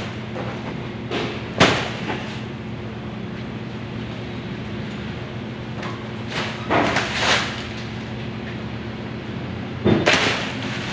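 Boxes thudding as they are set down and stacked at the back of a truck: one knock about a second and a half in, a few close together around the middle, and one more near the end. A steady machine hum runs underneath.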